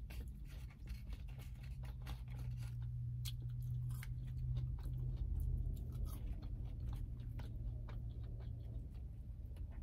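A person chewing McDonald's French fries close to the microphone: a quick run of small, soft mouth clicks and crunches, over a low steady hum.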